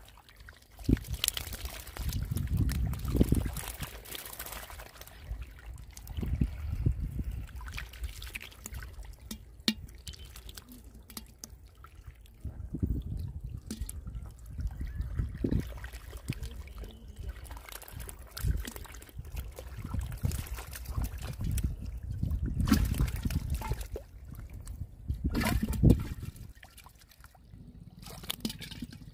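Shallow muddy water trickling and sloshing over sand and bamboo sticks, with irregular splashes and slaps as trapped fish thrash in it.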